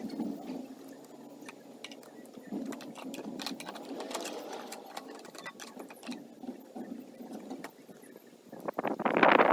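EGO battery-powered electric lawn mower running, with clicks and rattles, getting much louder briefly near the end.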